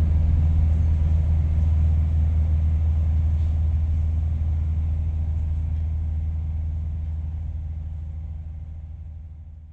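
Steady low rumble of a Rhaetian Railway narrow-gauge train heard from on board, fading away over the last few seconds.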